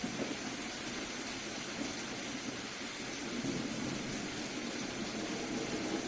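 Soft rain falling steadily: an even, continuous hiss.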